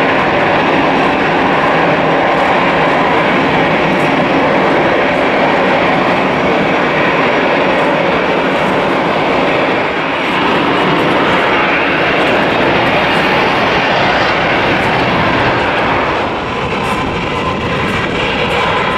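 Steady roar of jet aircraft noise, loud and unbroken, dipping slightly about ten seconds in and again near the end.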